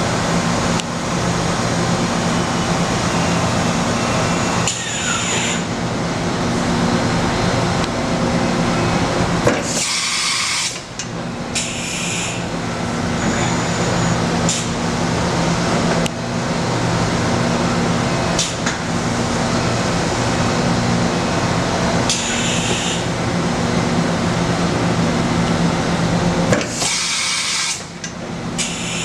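Matsuura MC-760VX CNC vertical machining center running a milling program: steady spindle and cutting noise with a low hum that pulses every second or two. Several short hissing bursts, about a second each, break in about ten seconds in, again near twelve, twenty-two and twenty-seven seconds.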